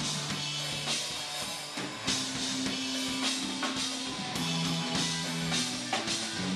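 Punk rock band playing live: electric guitar and bass holding low notes that shift every second or two, driven by a drum kit with repeated cymbal hits.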